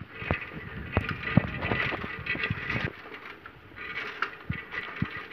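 Bicycle ridden over a bumpy dirt track, rattling with irregular knocks and clicks.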